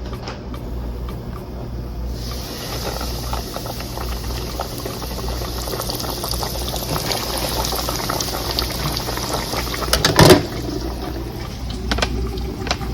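Breaded chicken thighs sizzling and crackling in a deep fryer's 350°F oil, the hiss starting about two seconds in as they go into the oil and holding steady. A loud knock about ten seconds in, over a steady low hum.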